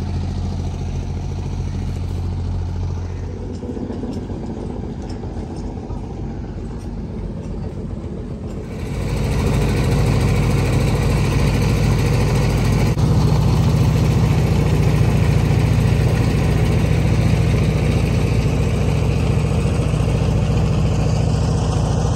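An engine boat's motor running steadily with a low hum. It becomes much louder and fuller from about nine seconds in.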